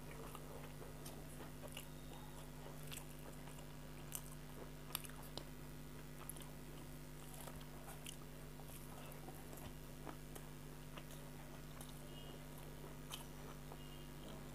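Faint close-up chewing of rice and dry, spicy fried small fish, with scattered small crunches and clicks. A steady low hum runs underneath.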